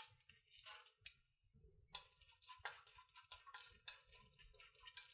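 Very faint, scattered clicks and ticks of chopped walnuts, almonds and cashews being stirred with a wooden spatula in warm ghee in a steel kadai.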